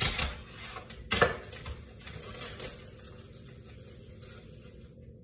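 A glass baking dish set down on the counter with a sharp clack about a second in, amid lighter handling and plastic-bag rustling.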